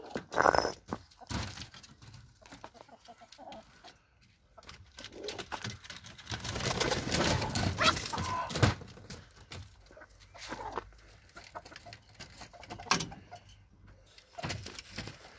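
Backyard chickens clucking and calling, with one short loud call about half a second in. Short knocks and rustling from handling are mixed in, busiest in the middle.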